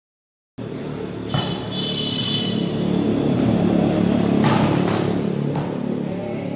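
After a moment of silence, a volleyball rally on a concrete court: a steady low rumble with a few sharp hits of the ball, the loudest about four and a half seconds in. A brief high tone sounds near two seconds.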